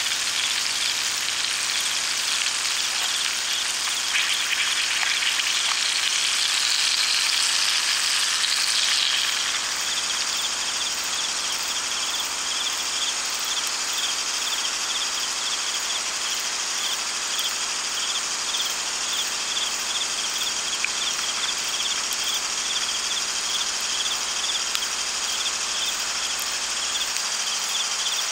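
Night insects chirping steadily, with a short chirp repeating about twice a second over a dense high hiss that is louder for the first nine seconds.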